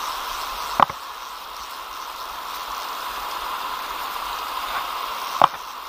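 Steady rush of river water over a shallow, stony run, with two sharp short sounds, one about a second in and one near the end.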